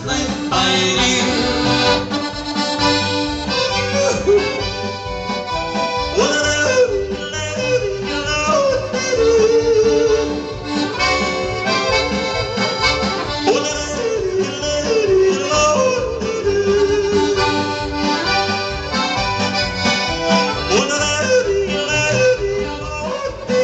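Live polka on accordion over a steady bass beat, with a man yodeling into a microphone in long swooping phrases several times.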